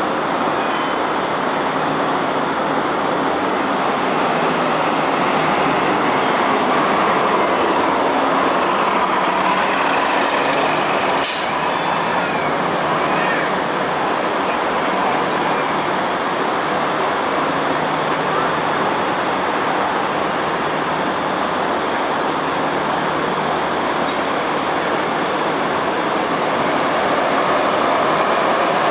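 New Flyer XD40 diesel transit bus pulling away, its engine running steadily amid street traffic noise, with one short sharp sound about eleven seconds in.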